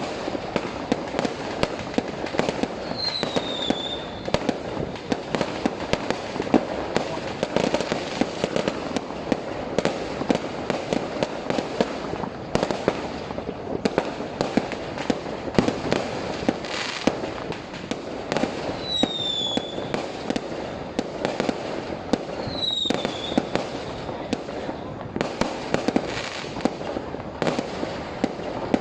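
Fireworks display: a dense, continuous crackling and banging of many fireworks going off, with a short falling whistle cutting through about four times.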